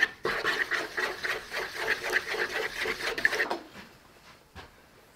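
Metal spoon stirring a thick dark marinade fast in a mixing bowl: quick, even scraping and sloshing strokes that stop about three and a half seconds in, followed by a faint click.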